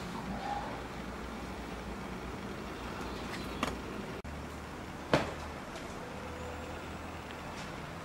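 Outdoor ambience with a steady low rumble, broken by two sharp knocks: a lighter one past the middle and a louder one about five seconds in.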